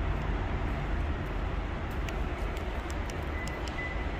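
Steady low rumbling background noise of a concrete parking garage, with a few faint light clicks through the middle.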